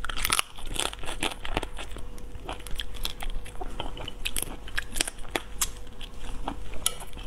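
Close-miked cracking and crunching of shrimp shells as shrimp are bitten and peeled by hand, with chewing: a quick, irregular run of sharp crackles and clicks over a faint steady hum.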